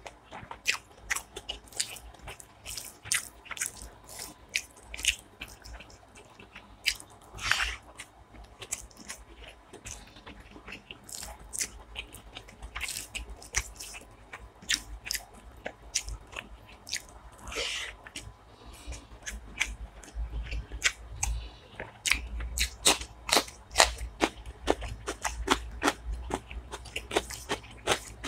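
Close-miked eating sounds: a rapid series of wet clicks and smacks from chewing, with fingers squishing rice and curry together on the plate. The clicks come thickest near the end.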